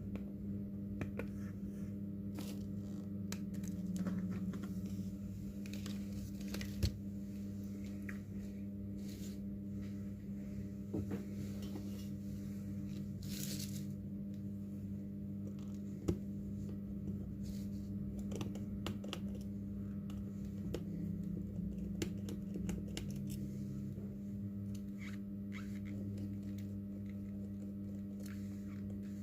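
Hand work on a smartphone during a display repair: scattered small clicks, scratches and tearing sounds of tools and parts being handled, over a steady electrical hum.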